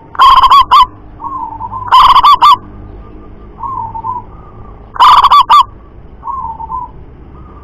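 Zebra dove cooing: three loud phrases of quick staccato notes, about two to three seconds apart, with softer coo phrases in between.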